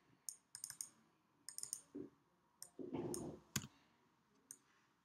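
Faint, scattered clicks of a computer mouse and keyboard keys during text editing, with a short, dull, muffled noise about three seconds in.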